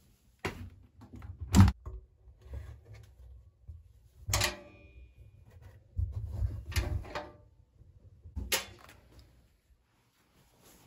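A series of knocks and clicks from hard household objects being handled and set down, the loudest about a second and a half in; one knock near the middle rings briefly.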